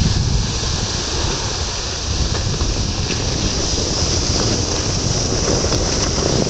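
Skis sliding over snow with a steady rushing hiss, and wind rumbling on the microphone.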